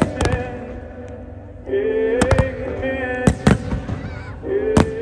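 Fireworks bursting overhead: a run of sharp bangs, several in quick pairs, about seven in all.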